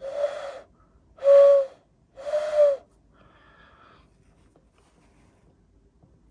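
Hand whistle (cupped-hands ocarina) blown in three short notes at about the same middle pitch, each with a lot of breathy air noise over the tone. It is a dull tone, from the right thumb sitting slightly too high over the blowing gap.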